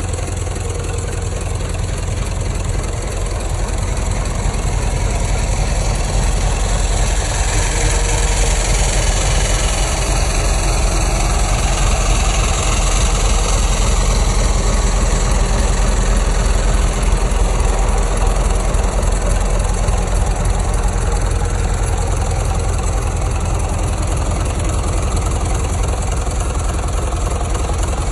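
Turbo-diesel engine from a Ram truck, running steadily at idle on a run stand.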